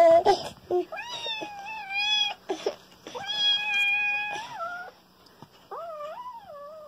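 Small black kitten meowing, a few long drawn-out meows one after another.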